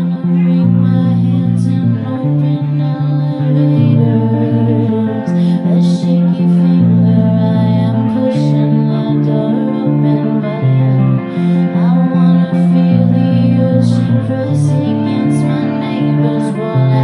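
Live song on a Telecaster-style electric guitar played through an amplifier, its chords strummed in a steady rhythm, with a woman's singing voice.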